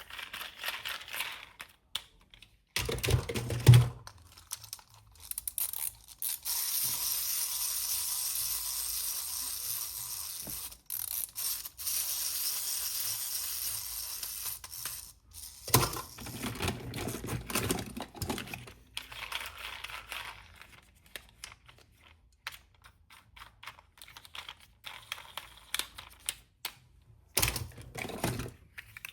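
Small hard plastic toy parts clicking and tapping together as they are handled and fitted, with a few heavier knocks. A long stretch of rustling plastic packaging runs through the middle.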